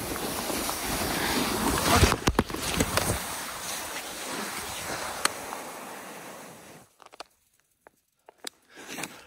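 Rushing, scraping noise of a person glissading on their backside down a steep slope of soft snow, boots ploughing through it, with a few knocks about two seconds in. The rush fades away as the slide slows, and it drops out about seven seconds in, leaving near silence with a few faint clicks.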